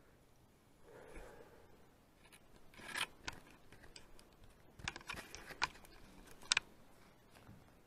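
Handling noise close to the microphone: a soft rustle about a second in, then a string of sharp clicks and scrapes over the next few seconds as the camera and gear are moved.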